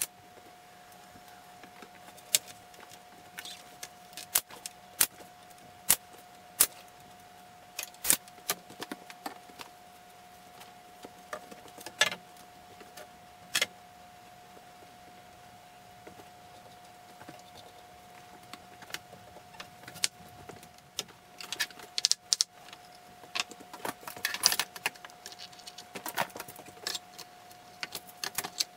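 Scattered sharp knocks and clatter of wooden rails and bar clamps being handled on a workbench, busier near the end, over a steady faint high-pitched hum.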